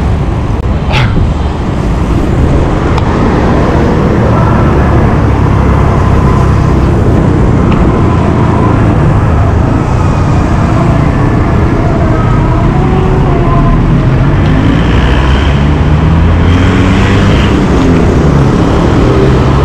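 Busy street traffic heard from a moving bicycle: motorbike and car engines running and passing, their pitch sliding up and down over a steady low rumble. A single sharp click about a second in.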